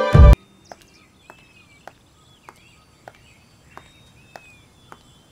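A brief, very loud hit cuts off the music at the start. Then come evenly spaced footsteps on a path, a little under two a second, with faint bird chirps behind them.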